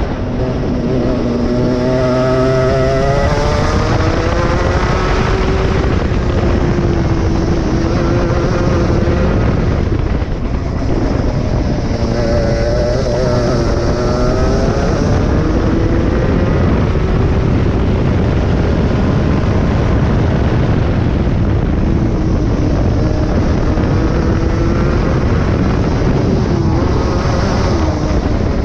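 A 23 hp go-kart engine running hard, its pitch climbing as it accelerates and dropping as it eases off, over and over through the corners.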